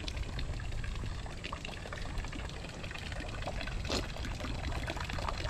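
Water from a small statue fountain splashing and trickling steadily into a lily pond.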